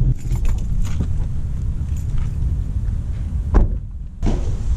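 Low rumble of a moving car, with several clicks and knocks. A thump about three and a half seconds in is followed by a brief near-silent gap and another thump.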